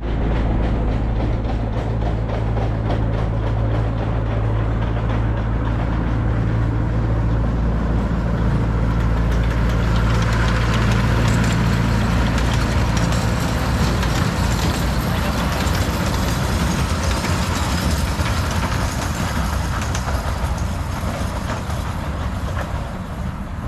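Miniature train's locomotive engine running with a steady low hum as its passenger cars roll past on the rails. The engine note drops away a little past halfway, leaving the rumble of the wheels, which fades near the end.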